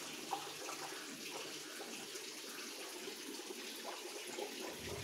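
Water running steadily through the PVC waste-drain pipe of a fish-breeding tank, its valve opened to draw off the waste.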